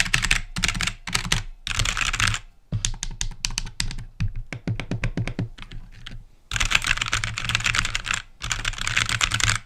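Aula F2088 mechanical keyboard being typed on fast, dense runs of clacking keystrokes with two short pauses, a typing-sound test of its mechanical switches.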